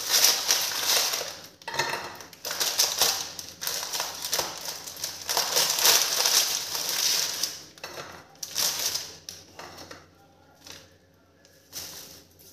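Plastic biscuit packet rustling in a series of bursts as cookies are taken out and set into a glass jar, with small clicks of cookies against the glass. The rustling dies away about ten seconds in, leaving a couple of faint taps.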